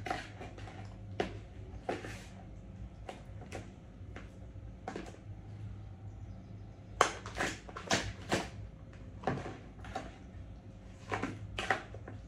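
Raw chicken being stirred together with spices and vegetable oil for a marinade: irregular short scrapes and clicks, busiest about seven seconds in and again near the end.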